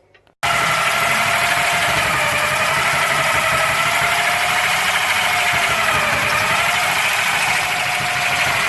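A power tool's motor starts abruptly about half a second in and runs steadily with a high whine that dips slightly in pitch now and then.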